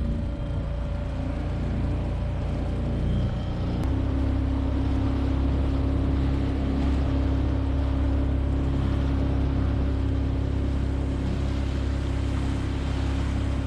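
Motorboat engine running steadily, its note shifting to a new steady pitch about four seconds in.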